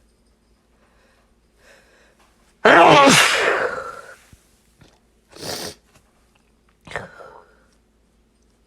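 A person sneezing hard into a tissue about three seconds in, a loud cry that falls and trails off over about a second, after a short breath in. Two shorter bursts of breath follow, the second near the end.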